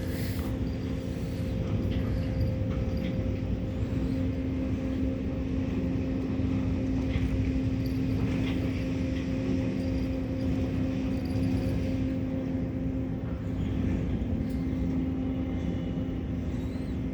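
Steady low machine drone with a constant hum.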